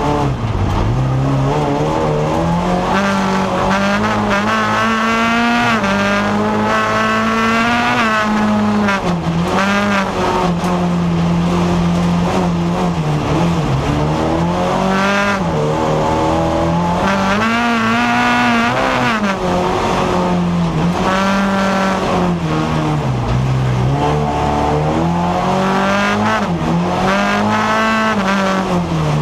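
Onboard sound from inside a folkrace car's cabin: the engine runs hard, its note climbing and dropping again and again as the car accelerates and lifts around the track.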